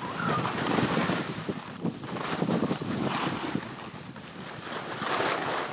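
Skis hissing and scraping over packed snow during a downhill run, with wind buffeting the microphone. The noise swells and fades as the skier moves.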